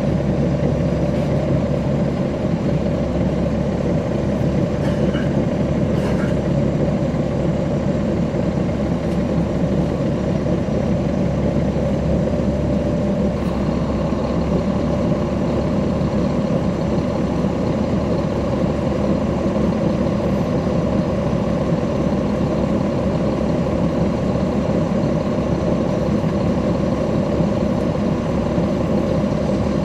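Caterpillar C13 ACERT inline-six diesel engine of a NABI 40-SFW transit bus, heard from inside the bus, running steadily. The sound shifts slightly about a second and a half in, and turns a little brighter about halfway through.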